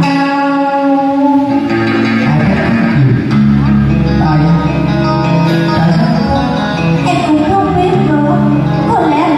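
Guitar-led backing-track music with a steady bass line, accompanying a duet song performed on stage.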